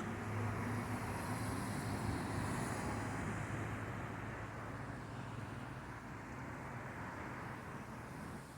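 Passing road vehicle: a low engine hum with tyre hiss, fading away as it moves off.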